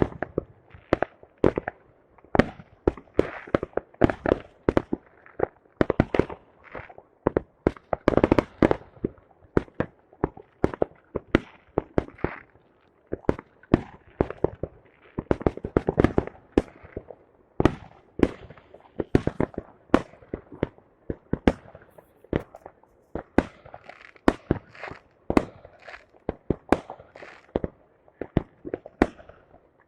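Fireworks salute: a dense, irregular barrage of sharp bangs and cracks, several a second without a break, each trailing off in a short echo.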